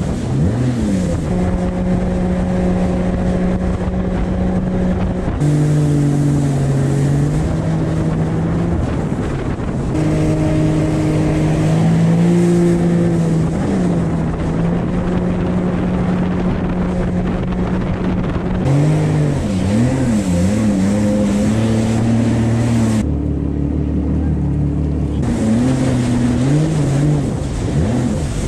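Yamaha WaveRunner jet ski engine running at speed over a rush of wind and water. Its note steps to new pitches a few times, and near the end it wavers up and down as the throttle changes.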